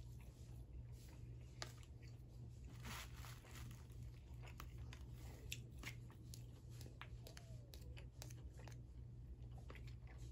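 Close-up eating sounds: a person chewing and crunching a mouthful of beef pad kra pao and rice, with light, scattered clicks of a metal spoon and plastic fork against a plastic food container, over a low steady hum.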